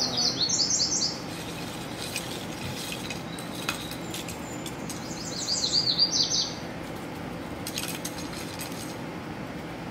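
A small songbird singing two short phrases of rapid, repeated high down-slurred notes, about a second each: one right at the start and one about five seconds in. Fainter short high chirps fall between them.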